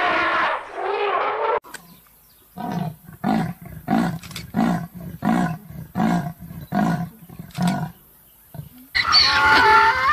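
Leopard giving its sawing call: a string of about nine hoarse, rasping grunts at roughly two a second. It is preceded by the tail of an elephant call, and a donkey starts braying near the end.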